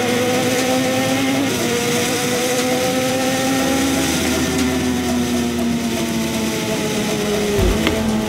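Sportbike engine running at steady cruising revs, with wind rushing over the microphone. The revs drift slowly, then dip sharply and recover near the end.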